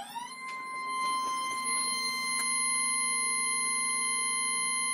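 Schneider Lexium MDrive integrated stepper motor run as a spindle at a programmed 1,000 RPM, its whine rising in pitch for the first half-second as it finishes spinning up, then holding a steady high whine with several overtones over a lower hum.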